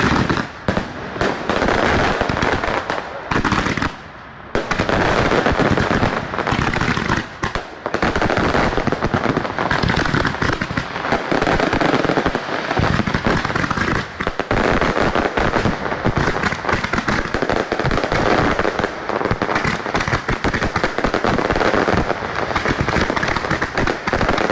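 A dense, near-continuous barrage of display firework bangs and crackling, with a brief lull about four seconds in.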